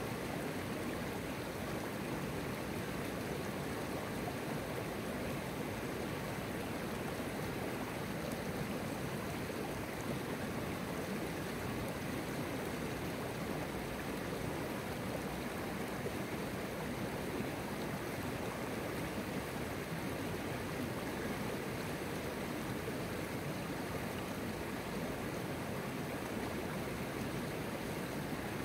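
Mountain river flowing: a steady, unbroken sound of running water over a shallow bed.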